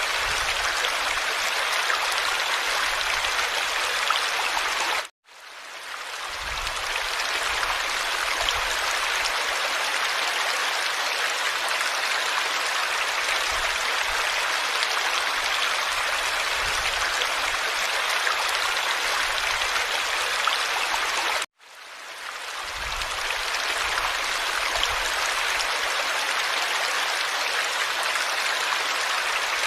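Steady rushing of running stream water. It cuts out abruptly twice and each time fades back in over about a second.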